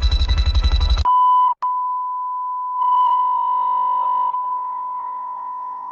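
Synthesized electronic beeps: a fast pulsing beep with a low thud under it for the first second, then one long steady beep tone, broken off for an instant about half a second later. The long tone grows fuller for about a second and a half midway, then slowly fades.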